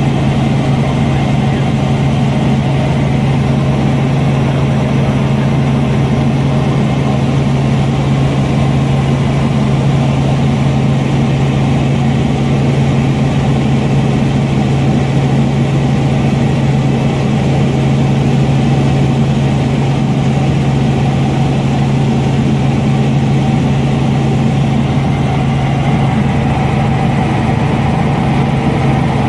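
Robinson R44 Raven I helicopter heard from inside the cabin: a loud, steady drone of engine and rotors with a strong low hum, unchanging throughout.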